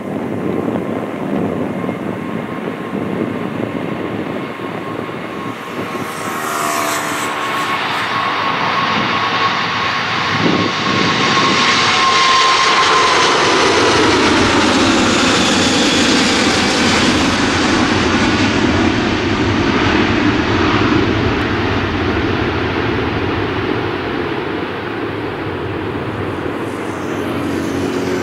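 Four-engined Airbus A380 jet airliner taking off at full thrust. The engine noise builds as it rolls and lifts off, with a whining tone over the noise, and is loudest as it passes overhead, where the tone drops in pitch. It then slowly fades as the airliner climbs away.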